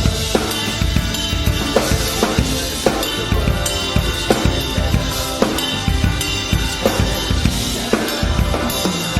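Rock drum kit played along with a rock band recording in an instrumental passage: regular kick and snare hits with cymbals over steady guitar and bass.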